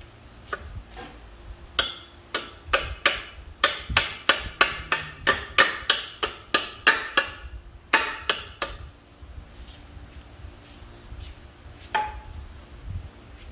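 Hammer striking a brass punch to drive a shaft bearing into a manual transmission case: a steady run of sharp metallic taps, about three a second, then a few more after a short pause, with a lighter single tap near the end.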